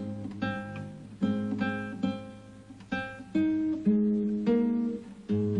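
Instrumental music: single plucked guitar notes, each struck sharply and dying away, over a held low bass note.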